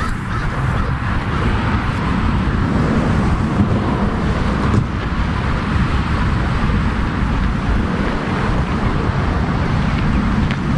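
Wind buffeting the microphone of a dog-worn action camera: a steady rushing noise, heaviest in the low end.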